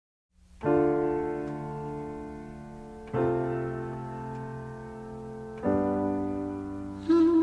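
Intro music: three sustained keyboard chords, struck about two and a half seconds apart and each left to fade. A wavering, vibrato tone joins at the very end.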